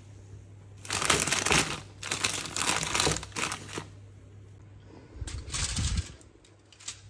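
Crinkling and rustling of a plastic food bag and aluminium foil as raw croissants are taken out and laid on a foil-lined baking tray, in several handling spells with pauses between them.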